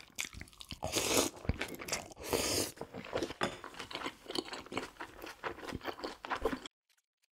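Close-miked eating: crunchy bites and wet chewing of a bulgogi and fresh kimchi meal, as a dense run of small crunches and clicks. Two louder rasping crunches come about a second in and again about two and a half seconds in. The sound stops abruptly near the end.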